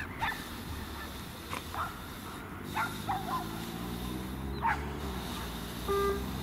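Waterbirds calling on the lake: short pitched calls, several of them scattered through, over a steady low background rumble.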